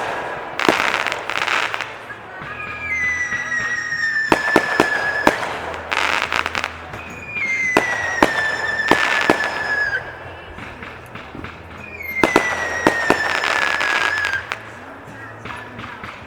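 Fireworks going off: sharp bangs and bursts of crackling, with three long whistles, each falling slightly in pitch over a couple of seconds, about five seconds apart.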